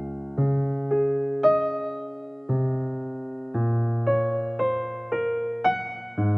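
Slow background music on a piano-like keyboard, with single notes struck one after another, each ringing and fading before the next.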